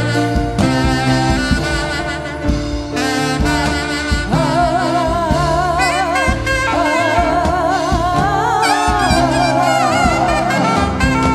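Live gospel band music with bass and chords. About four seconds in, a lead melody with a wide vibrato comes in over it, from a saxophone or a singing voice.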